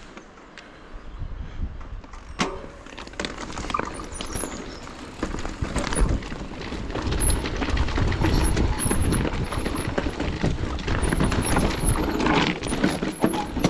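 Electric mountain bike riding down a rocky trail, getting louder from about two seconds in: tyres crunching over rocks and gravel, with the bike knocking and rattling over the bumps and a steady rumble underneath.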